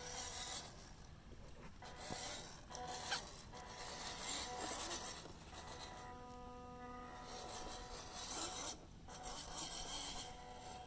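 WPL D-42 RC van's electric motor and geartrain whirring with a rasp, coming and going in bursts of about a second as it is driven over wet rock.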